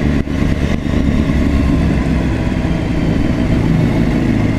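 2016 BMW S1000RR inline-four engine running with the bike under way, a dense steady rumble mixed with wind rush, dipping briefly twice in the first second.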